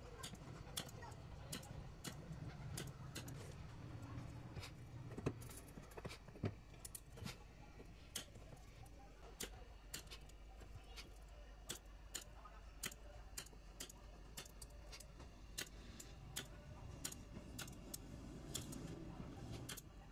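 Battery spot welder firing again and again as its handheld probes weld metal strip onto 18650 lithium-ion cells: a quick, irregular series of sharp clicks, about two a second.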